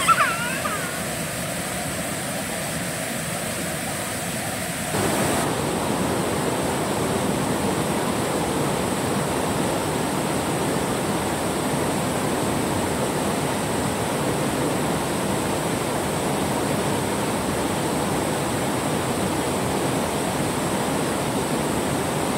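Steady rush of a shallow river flowing over rocks, becoming louder about five seconds in.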